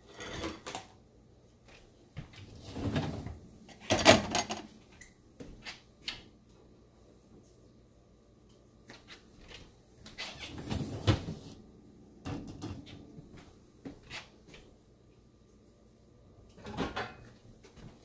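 Dishwasher being worked in the kitchen: dishes and racks clattering in several separate bursts, the loudest a few seconds in.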